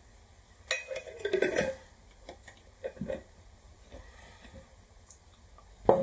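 Glass jar with a screw lid handled on a desk: a cluster of clinks and scrapes about a second in, a few light knocks, then a sharp knock near the end.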